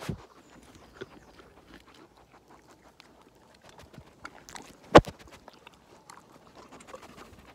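Close-up crunching and chewing of carrot by a black equine, with many small crackles throughout. There is a sharp knock at the very start and a much louder thump about five seconds in, the loudest sound.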